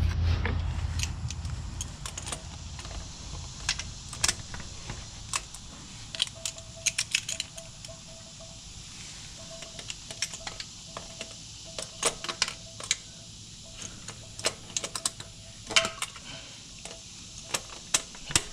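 Scattered metallic clicks and taps as oil filter pliers are fitted and worked around a car's spin-on oil filter from underneath, trying to break it loose. A faint broken tone comes and goes in the background from about a third of the way in.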